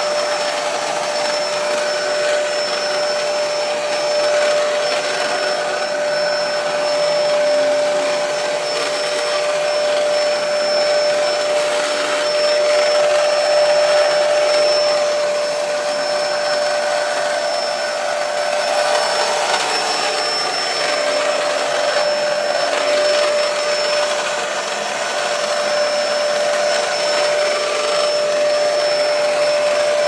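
Bagless upright vacuum cleaner running steadily: a constant rush of air with a steady motor whine.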